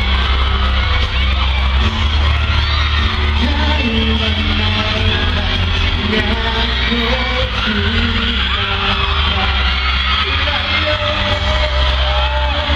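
Male voices singing a Filipino pop song live into microphones over a loud amplified backing track with heavy bass, with fans in the crowd screaming.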